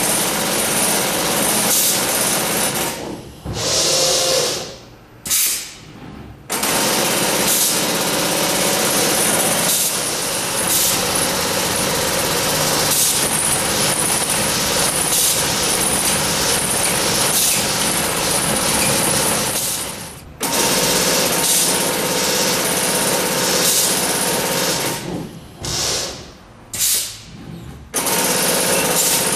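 Wilcom AutoTuft TM3040 robotic tufting machine with its Mk3 pneumatic tufting head running, a rapid steady mechanical hammering with a hiss as it shoots yarn into the backing cloth. It stops twice for a few seconds, once a few seconds in and again near the end, with short spurts of running in between.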